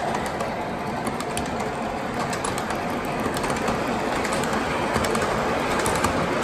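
MTH O-scale R62A subway model train running, its onboard sound system playing subway running noise. A steady rumble with scattered sharp clicks.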